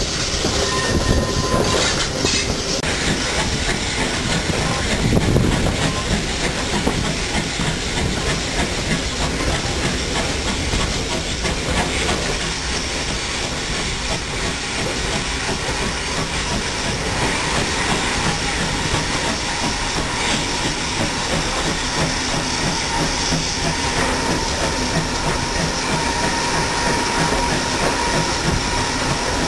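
Steam locomotive running along the line, heard from beside its cab: the wheels click over the rail joints under a steady rush of wind noise on the microphone.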